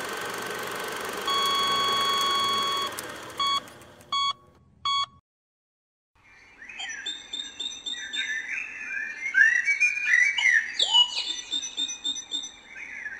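Cartoon sound effects. A rushing noise with a held beep tone is followed by three short beeps and a moment of silence. Then comes a busy run of quick, whistle-like glides rising and falling in pitch.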